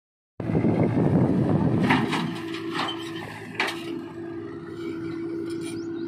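Backhoe loader and tractor engines running as a bucketload of soil pours into a steel tractor trolley, then a few sharp metallic clanks from the bucket over the next couple of seconds, with a steady engine hum underneath.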